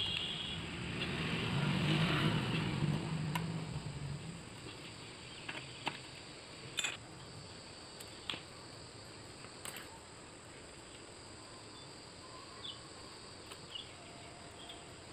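A low drone fades out over the first four seconds. Then scattered sharp metallic clicks and taps follow as hand tools work on a Honda Activa scooter engine's cylinder head and cam sprocket.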